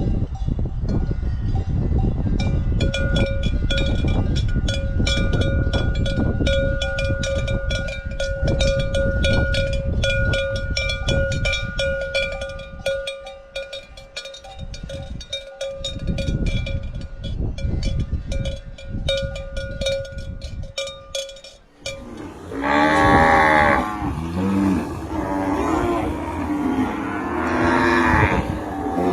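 Cowbells clanking irregularly on a herd of cattle, ringing on steady tones. About three-quarters of the way in the bells stop and cows moo, with two long moos.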